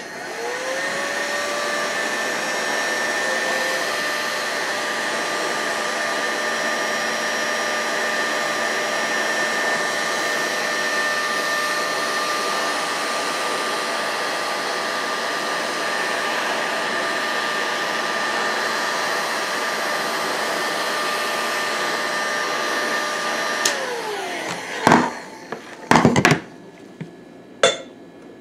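Electric heat gun blowing hot air onto an engine crankcase to expand it for a bearing press-fit. Its fan whine rises as it spins up, runs steadily for over twenty seconds, then drops in pitch and dies away when it is switched off. Three sharp knocks follow near the end.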